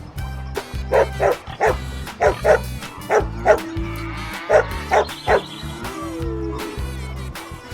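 Dog barking, about ten short barks in quick groups of two or three, over background music with a steady beat.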